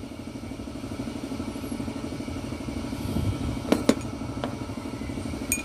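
An engine running steadily in the background, with an even pulse. Just under four seconds in there are two sharp metallic clicks close together as a steel nut is set down on a flat steel bar, and a fainter click follows.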